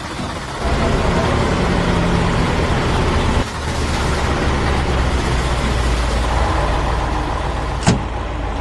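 Vehicle engine running steadily with a low hum, dipping briefly about three and a half seconds in; a single sharp click near the end.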